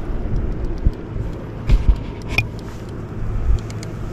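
Low steady rumble with several dull knocks and a sharp click: handling noise on a plastic fishing kayak as a just-caught perch is dealt with.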